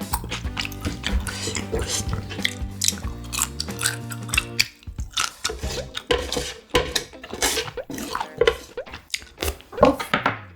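Chopsticks and tableware clicking against dishes amid close-miked eating sounds, over background music that stops about halfway through.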